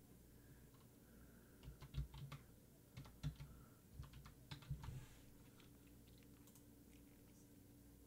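Typing on a computer keyboard: a quick run of key clicks lasting about three seconds, then only a faint steady hum.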